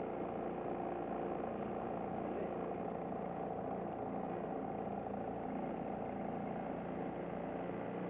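Tohatsu 5 hp outboard motor running at a steady speed, pushing a small boat along.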